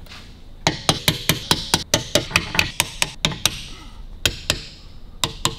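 Rapid run of sharp clicks from a hand wrench being worked on a bolt of an Indian 741B engine case, several a second for about three seconds, then two quick pairs of clicks near the end.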